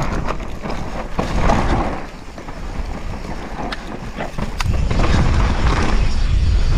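Downhill mountain bike rolling down a steep dirt trail: tyres on loose dirt and rocks, with a few sharp knocks and rattles from the bike, under a steady rumble of wind buffeting the helmet-mounted action camera's microphone. The rumble grows louder about five seconds in.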